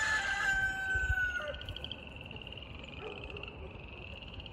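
Rooster crowing: one long, held crow that ends with a drop about a second and a half in. A steady pulsing trill runs underneath.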